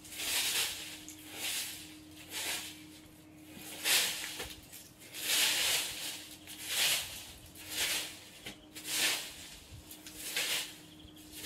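Broom sweeping dead leaves across paving stones: about ten rough swishes, roughly one a second.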